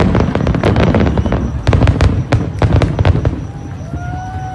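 Fireworks bursting in quick succession, a dense run of sharp bangs and crackles that thins out and gets quieter about three seconds in.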